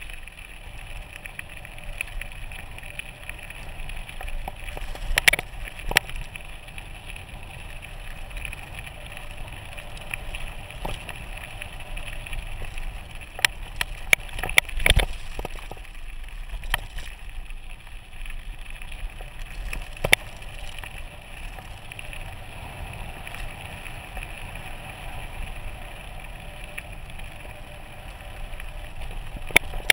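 Mountain bike rolling fast down a loose gravel road: a steady rumble of the tyres on the stones, with sharp rattles and knocks every few seconds as the bike hits bumps, the biggest cluster about halfway through.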